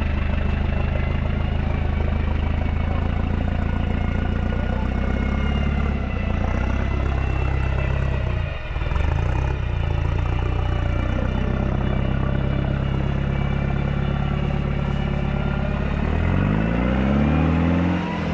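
Off-road race vehicle's engine running hard under load as it pushes through deep mud, its note dipping briefly about halfway through and revving up with a rising pitch near the end.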